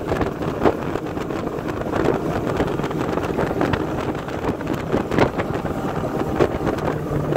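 A 1989 Hurricane deck boat under way, its engine running, with wind buffeting the microphone. A steady low engine hum comes through more clearly near the end.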